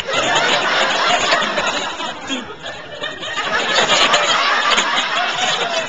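Studio audience laughing at length after a punchline.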